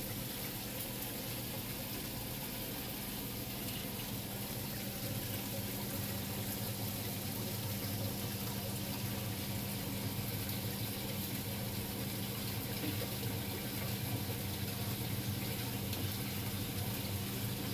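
Saltwater aquarium's water circulation: water running and splashing steadily into the tank over a low steady hum.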